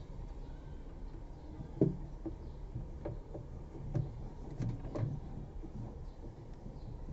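T-shaped spanner knocking and clicking on a tight bolt in a top-load washing machine tub: about five short sharp knocks, the loudest about two seconds in, over a low steady hum.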